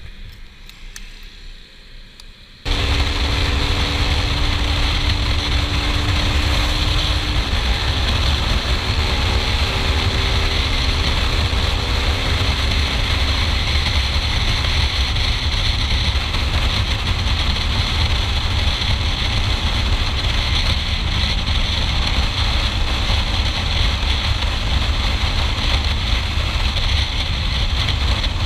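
KTM Duke 390 motorcycle on the move: steady, heavy wind noise on the camera microphone with the engine running underneath. It comes in abruptly about two and a half seconds in, after a quieter stretch.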